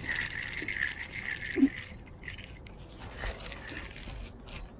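Fishing reel being cranked, a steady gear sound with rapid ticks for the first couple of seconds. A sharp knock comes about a second and a half in, followed by scattered clicks.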